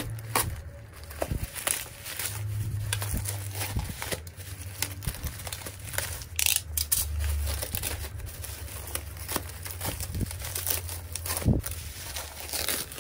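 Bubble wrap and plastic packaging crinkling and rustling in irregular crackles as it is handled, slit with a box cutter and pulled open.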